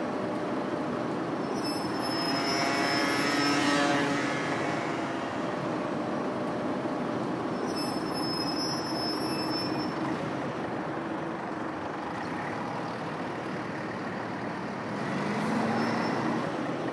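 City bus pulling away from the stop over steady street traffic noise, its engine note swelling a couple of seconds in and again near the end, with a faint high whine twice.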